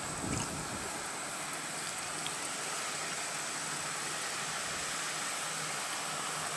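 Steady outdoor background hiss at an open overlook, with a thin, high, steady tone running through it. There is one brief low bump shortly after the start.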